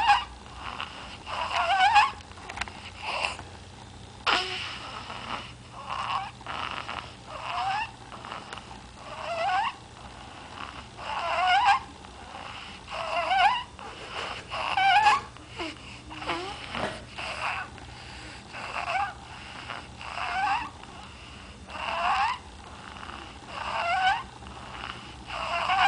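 A sleeping baby snoring, a short squeaky snore that rises in pitch on each breath, repeating every second or two.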